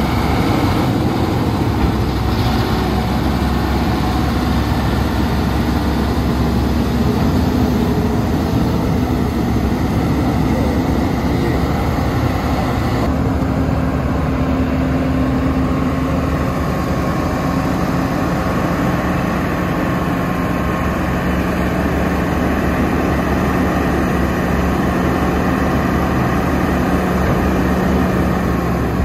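A vehicle engine running steadily, a low continuous hum whose pitch drops and then holds about halfway through.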